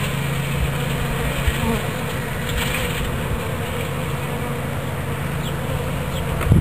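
A swarm of honey bees buzzing: a steady, dense hum of many bees in flight at once.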